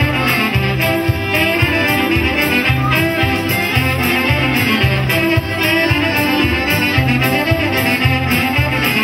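Lively Polish folk dance music, a brass-led tune over a steady pulsing bass beat, playing as accompaniment to a stage folk dance.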